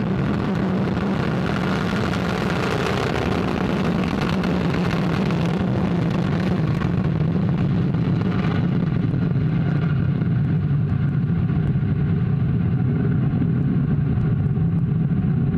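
Vega rocket's P80 solid-fuel first-stage motor burning just after liftoff: a loud, steady noise of exhaust, heaviest in the low range, its high hiss falling away about halfway through as the rocket climbs away.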